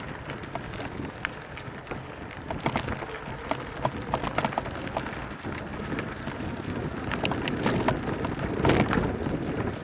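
Bike tyres rolling over a rocky dirt trail, with a steady rumbling hiss and many scattered sharp clicks and rattles of stones and the bike. It gets louder and busier near the end.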